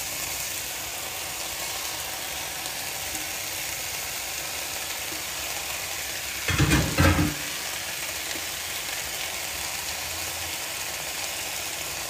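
Rice vermicelli and vegetables sizzling steadily in a frying pan as they are stir-fried, with one short, louder clatter about six and a half seconds in.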